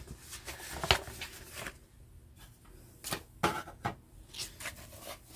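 Hands handling a plastic model car kit body and setting it down on a cutting mat: a few light clicks and taps, one about a second in and two sharper ones around three seconds in.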